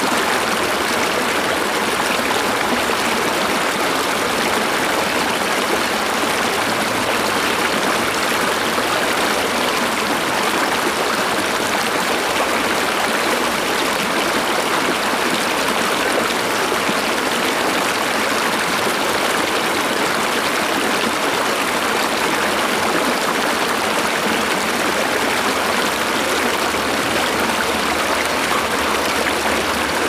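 A natural stream flowing steadily, a constant rush of running water with no change in level.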